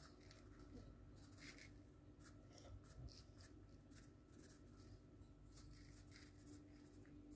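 Near silence: room tone with faint, scattered scratchy ticks and a faint steady hum.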